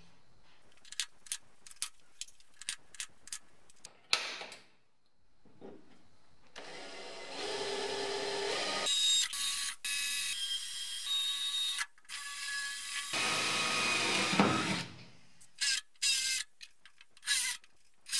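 Cordless drill boring out spot welds in a car's steel floor pan. The drill runs for about five seconds, stops briefly, then runs again for about two seconds, with a string of light clicks before and after.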